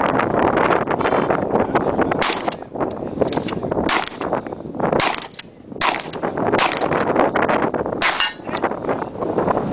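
Shotgun firing a string of about ten shots, starting about two seconds in and coming half a second to a second apart, with wind buffeting the microphone throughout.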